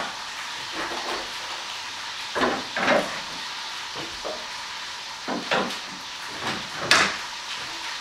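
Glass wine bottles being handled and slid into a wooden wine rack: a few short knocks and clinks. The sharpest comes about seven seconds in. A steady hiss lies under them.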